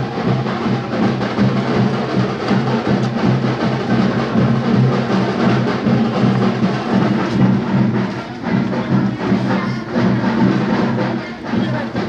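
Belt-driven electric wet grinder running: a steady motor hum with fast, even knocking.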